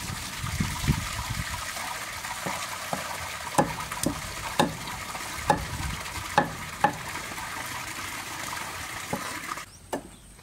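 Meat cleaver chopping raw chicken feet on a wooden chopping block: about a dozen sharp chops at uneven spacing, some in quick pairs, over a steady hiss. The chopping and hiss stop about nine and a half seconds in, with one more knock after.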